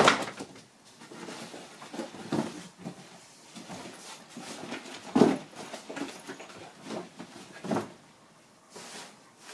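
Travel gear being packed into a backpack: rustling of fabric and bags with irregular soft thumps, the loudest right at the start and about five seconds in.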